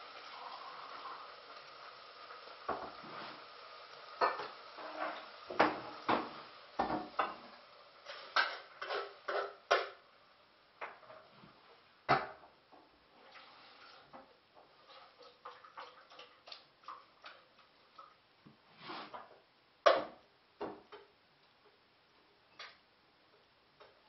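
Pots and dishes being handled and set down on a kitchen counter: irregular clinks and clatters of metal and crockery. They come thick and fast in the first half, then thin out, with the loudest clank about two-thirds of the way through.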